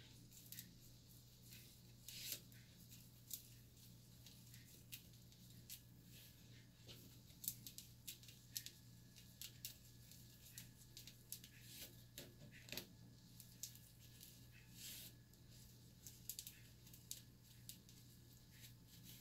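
Faint, irregular crackles and clicks of fingers with long nails plaiting micro box braids, over a steady low hum.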